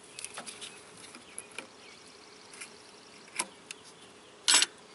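Scattered clicks and clinks of pliers and metal hand tools working at the power steering return hose clamp. A short, louder clatter comes about four and a half seconds in, over a faint steady hum.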